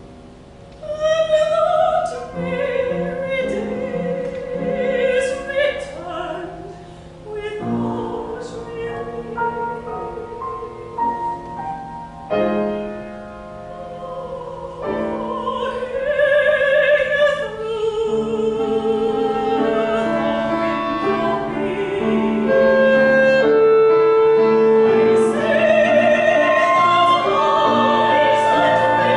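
A soprano sings an operatic aria with wide vibrato over piano accompaniment. She holds long sustained notes, and it grows louder in the second half.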